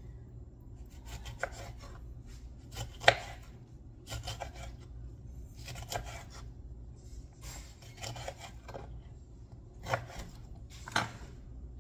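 Kitchen knife slicing a lemon on a wooden cutting board: irregular knocks of the blade striking the board every second or two, the sharpest about three seconds in.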